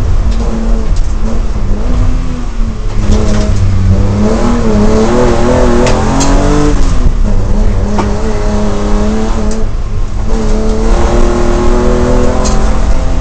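BMW M3 race car's engine driven hard uphill, its pitch climbing and dropping again and again as the revs rise and fall. A few sharp clicks cut through about halfway.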